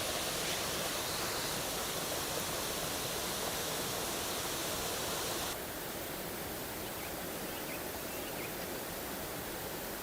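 Steady rush of a waterfall. About five and a half seconds in it turns slightly quieter and duller.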